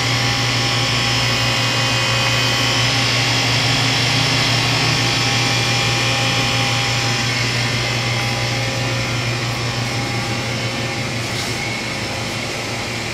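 Doosan Lynx 220LM CNC turning center running, a steady machine hum with several fixed whining tones, easing off slightly over the last few seconds.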